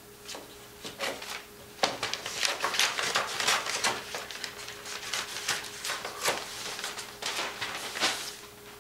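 Scissors snipping through a large paper map while the paper is handled, rustling and crinkling: a run of short, crisp snips and rustles from about two seconds in.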